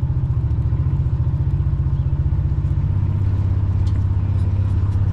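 An engine running steadily with a low, evenly pulsing rumble, settling to a lower pitch about three seconds in.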